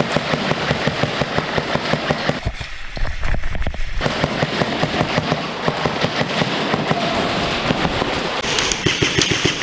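Airsoft guns firing in rapid overlapping bursts, a dense crackle of fast clicks and pops from electric rifles trading shots. About two and a half seconds in the sound turns muffled for about a second and a half.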